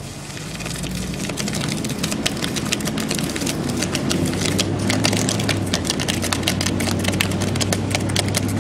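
Car pulling away and accelerating, its engine rising in pitch over the first few seconds and then holding steady, heard from the open back of the car. Over it, rapid irregular clicks and scraping from a rope-towed phone bouncing and sliding over the pavement, growing denser as speed builds.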